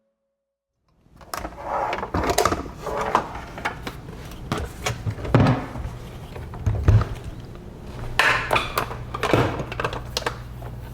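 Kitchen food-prep handling sounds: irregular knocks, clicks and rustles of things being picked up and set down, over a low steady hum.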